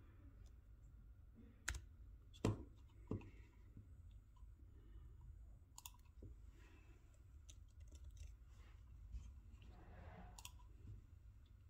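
A handful of sharp clicks from the keys of a Panasonic Toughbook CF-31 laptop, the loudest about two and a half seconds in, over a faint low hum.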